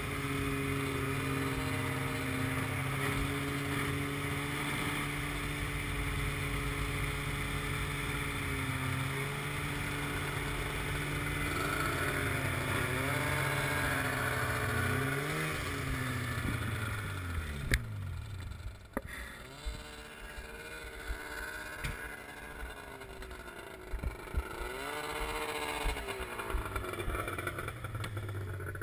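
Snowmobile engine running steadily at cruising speed, then slowing about halfway through and dropping to a low idle. Near the end there is a brief rev, and a few sharp clicks.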